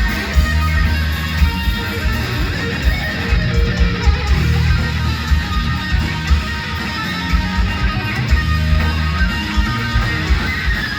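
Loud live heavy rock: an electric guitar solo over a steady beat of drums and bass.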